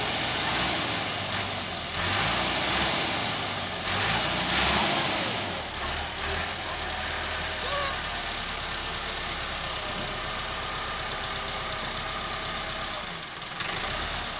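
Massey Ferguson 385 tractor's diesel engine running steadily while it works the hydraulic tipper to raise a loaded trolley bed.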